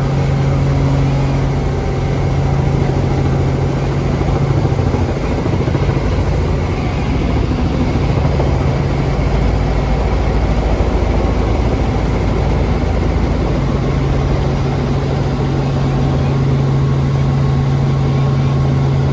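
Helicopter engine and rotor noise heard from inside the cabin, loud and steady. Its steady hum gives way to a deeper rumble for several seconds in the middle, then comes back.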